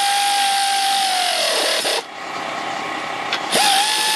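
Power ratchet running the hitch bolts in: a steady whine with hiss that slows and stops about halfway through, then starts again near the end, dipping slightly as the bolt takes up.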